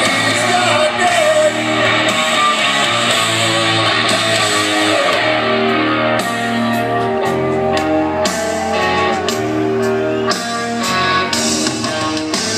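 Heavy metal band playing live, heard from the crowd: distorted electric guitar and a sung vocal line over bass and drums.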